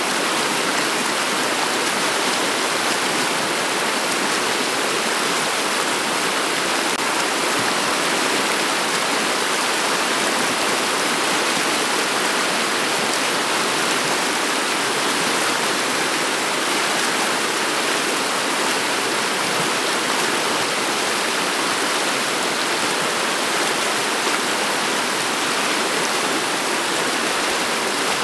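Shallow river running over a pebble bed: a steady rush of flowing water, mostly high-pitched, with little low rumble.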